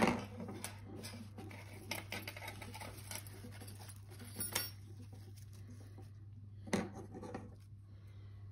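Handling noises: a string of small clicks and rustles as a mint cutting bound with wire is turned in the hand, with a sharp knock at the start and another nearly seven seconds in, over a steady low hum.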